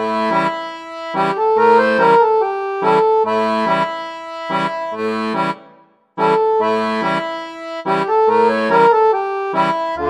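Music: a melody with held chords over a steady, bouncing bass line, cutting out briefly about six seconds in and then starting again.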